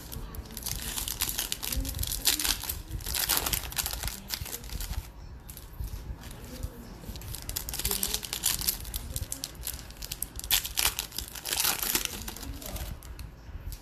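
Trading-card pack wrappers crinkling and tearing as they are opened by hand, in two spells, about 1 to 4 seconds in and again about 8 to 12 seconds in.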